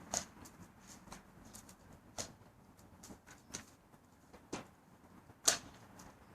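A BB gun being handled and readied: several light, separate clicks and knocks about a second apart, then a sharper, much louder crack about five and a half seconds in.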